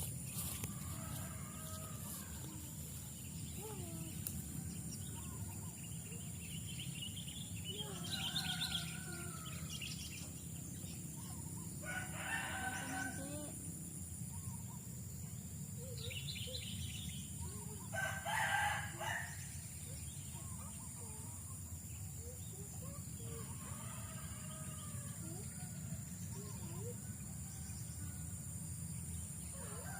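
A rooster crowing twice, a few seconds apart near the middle, among scattered small bird chirps and a steady high-pitched hum.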